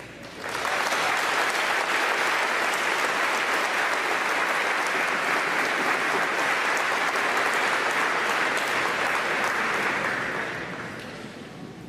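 Audience applauding. The clapping starts about half a second in, holds steady, and dies away near the end.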